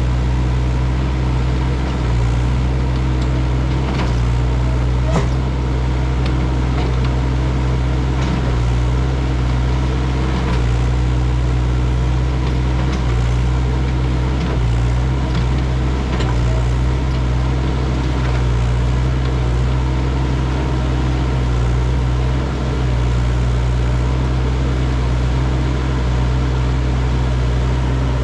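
Doosan DX55W wheeled excavator's diesel engine running steadily under work, with a few short knocks from the digging.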